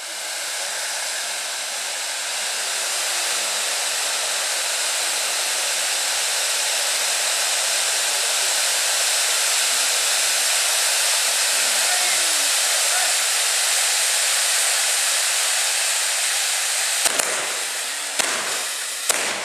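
Several hand-held tube fireworks (tezutsu hanabi) spraying sparks with a loud, steady hiss that builds over the first second. Near the end, as the spray dies down, there are a few sharp bangs.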